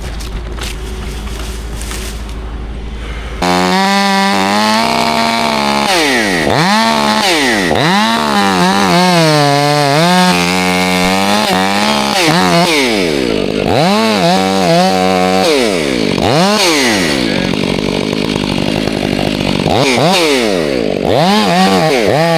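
A steady, lower engine hum, then about three and a half seconds in a chainsaw opens up to full revs and cuts, its pitch dipping and climbing back again and again.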